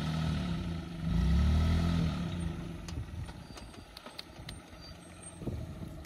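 Small hatchback's engine revving up and down as the car, stuck in loose sand, is pushed free; the revs rise and fall twice, loudest about a second in, then die away.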